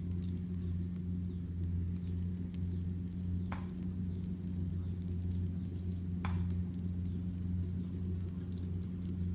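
Small wood fire with fish grilling on the embers, giving faint scattered crackles and a sizzle, with two short sharp pops about three and a half and six seconds in. Under it runs a steady low drone, like a distant motor, louder than the fire.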